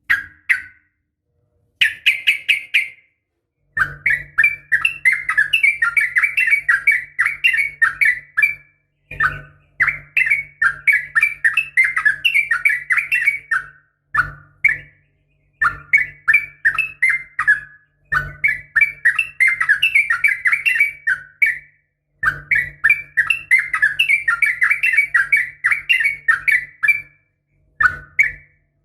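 Sooty-headed bulbul (trucukan) calls, presented as a female calling for a male: long runs of rapid, bubbly chirping notes lasting several seconds each, broken by short pauses and a few brief single phrases.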